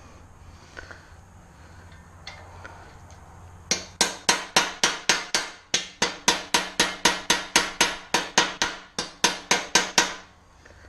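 A hand hammer striking again and again in a steady rhythm, about four to five blows a second, starting about four seconds in with two brief pauses, as a part of a dirt bike is knocked loose during teardown.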